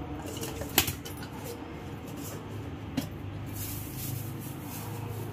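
Light kitchen handling noises over a steady low hum: two sharp clicks, about a second in and about three seconds in, and a soft rustle shortly after.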